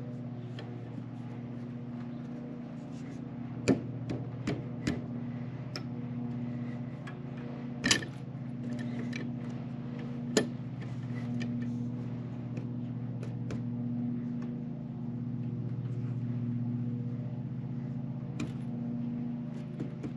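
Metal pipe clamp being cranked tight on a timber purlin, with a few sharp clicks and knocks of the clamp and wood, the loudest about four and eight seconds in. Under it runs a steady low engine-like hum that slowly swells and fades.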